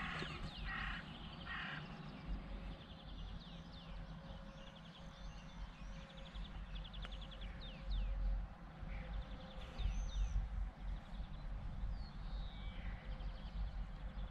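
Dawn birdsong from several birds: three harsh calls in the first two seconds, then many short chirps, sweeping whistles and quick trills, over a low steady outdoor rumble.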